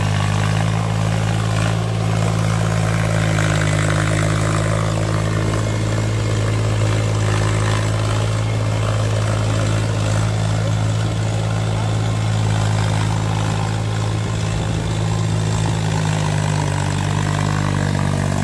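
Farm tractor's diesel engine running steadily as it pulls a cultivator through a wet, muddy field, with a slight shift in engine pitch near the end.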